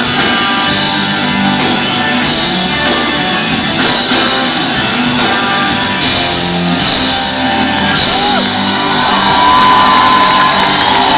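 Live rock band playing with electric guitars, heard from within the audience. Near the end a long high note is held and bent.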